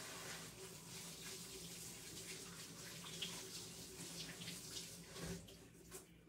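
Kitchen faucet running into a stainless-steel sink as hands are washed under it, shutting off about five seconds in.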